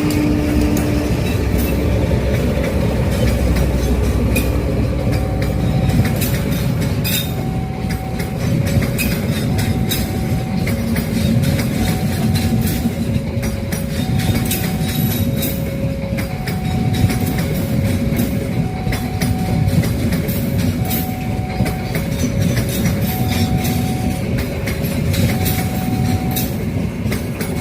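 Train passing close by, wheels clattering over rail joints over a steady heavy rumble. Through it, a high and a low steady note alternate at an even pace, about one note every second and a quarter.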